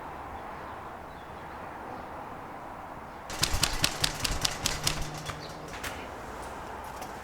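A quick run of sharp clicks and crackles starting about three seconds in and lasting a couple of seconds, then a few scattered clicks, over steady low background noise.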